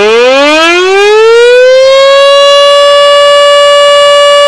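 Recorded air-raid-style siren sound effect played loud through the FX5 sound card's quick-effect button: a single siren tone that winds up in pitch, levels off about two seconds in, and holds steady.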